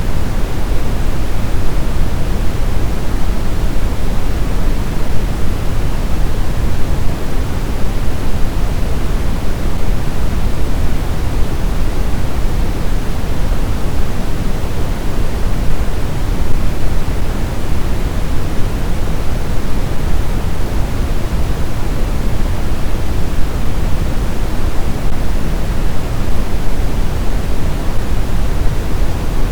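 Steady noise for sleep, an even hiss weighted toward the low end like pink noise, with no change or break.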